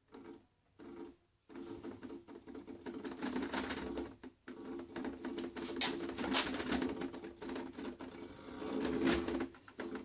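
Direct-drive washing machine brushless DC motor, a 120 V motor run from a 36 V controller: a steady hum of several tones with a clattering rattle over it. It starts in short bursts, cuts out briefly about four seconds in, and stutters in and out again near the end.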